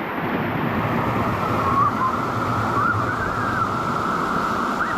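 Steady rushing of a waterfall, water pouring down over rock.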